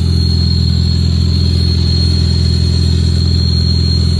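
A Dodge Challenger SXT's 3.6-litre V6 idling, with a loud, steady high-pitched whistle over it. The whistle appeared with a newly fitted oil catch can, and the owner thinks it may come from the can's breather filter.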